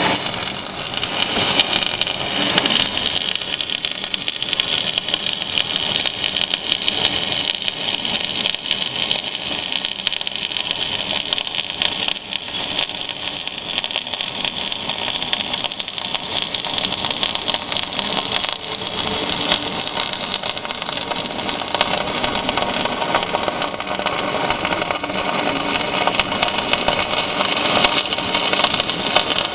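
Flux-cored wire-feed welding arc burning steadily: a continuous, dense sizzling crackle, strongest in the high range.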